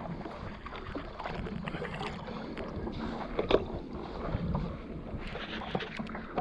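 Water lapping and sloshing against a stand-up paddleboard, with wind buffeting the camera microphone and scattered small knocks and rustles.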